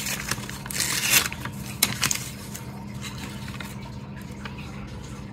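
A few scrapes and rustles of objects being handled in the first two seconds, then only a steady low hum.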